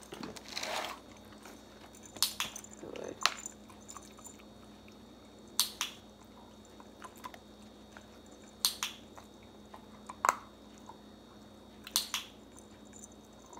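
A handheld dog-training clicker clicking about every two to three seconds, several of them quick double clicks. The clicks mark the dog for standing on its place marker.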